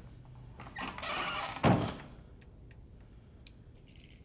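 A brief rush of noise about a second in, ending in a single heavy thud, then quiet room tone with a few faint ticks.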